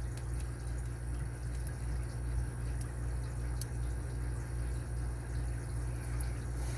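Faint small metallic ticks from a Lishi 2-in-1 pick being worked against the pins inside an Abus 83AL50 aluminium padlock, a few scattered ticks, over a steady low background hum.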